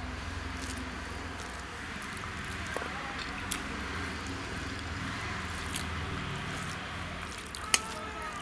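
Fingers mixing rice with buttermilk curry on a stainless steel plate: soft squishing with a few light clicks against the plate, the sharpest near the end. A steady low rumble sits underneath.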